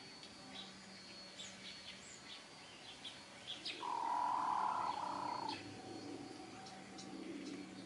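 Small birds chirping in short high notes, and about four seconds in a chicken's long drawn-out call lasting about a second and a half.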